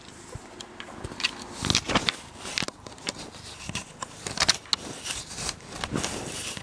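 A cat clawing and biting at a video camera up close: irregular scratching, rustling and sharp knocks right on the camera body and microphone, several in quick clusters.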